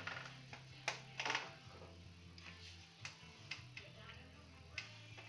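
Faint background music with low held notes, over which a handful of short clicks and knocks sound.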